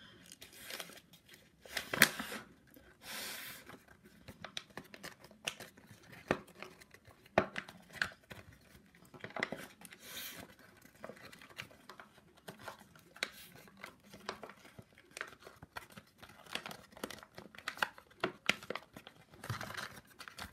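Folded paper crinkling and crackling in irregular bursts as an origami blow-up cube is handled, blown into and squeezed into shape.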